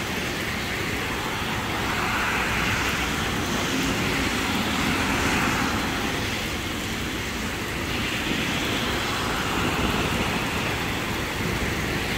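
Cars passing on a wet, flooded road, their tyres hissing and swelling twice as vehicles go by, over a steady wash of rain.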